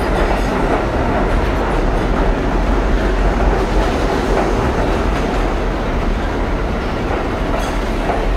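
Budd R32 subway train running past along the station platform: a loud, steady noise of steel wheels on the rails.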